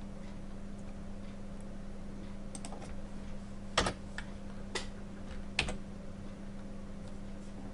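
A few sparse, irregular keystrokes on a computer keyboard, the loudest about four seconds in, over a steady low hum.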